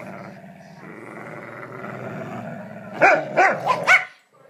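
Dogs play-growling steadily as they tug on a rope toy, then four quick, loud barks about three seconds in.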